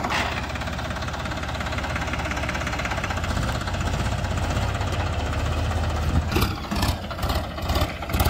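Sonalika DI 745 III tractor's three-cylinder diesel engine running as the tractor pulls a cultivator through the soil, growing louder about three seconds in. A few sharp knocks near the end.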